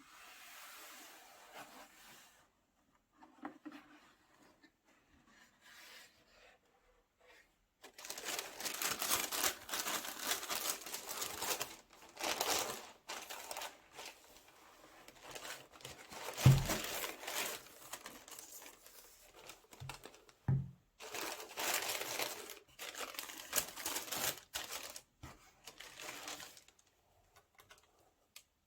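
Paper crinkling and rustling in long bursts as a trainer box is unpacked, with two dull thumps in between.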